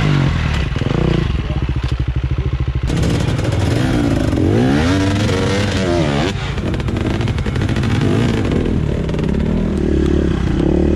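Enduro dirt bike engines: at first a fast, even beat at low revs, which cuts off sharply about three seconds in, then revving up and down in quick rising and falling sweeps, then running more steadily.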